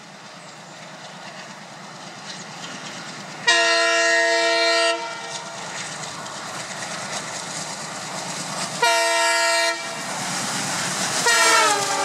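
A WDM-3D diesel locomotive sounds its horn in two steady blasts a few seconds apart, the first about a second and a half long and the second shorter, over the rumble of its approach. Near the end the train runs through at speed and the noise swells as the locomotive goes past.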